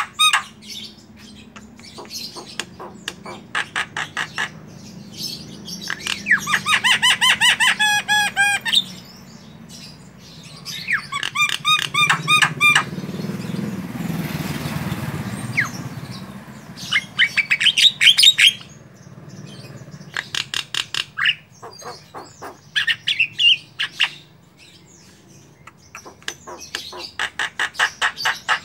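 Javan myna singing a varied song: bursts of rapid clicks and whistled notes, repeated with short pauses. Near the middle there is a few-second stretch of rushing noise.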